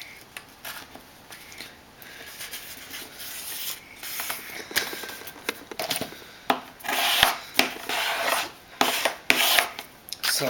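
A sheet of paper being folded on a wooden desk, fingers pressing and running along the creases in repeated rubbing strokes with short rustles and taps. The strokes come thicker and louder in the second half.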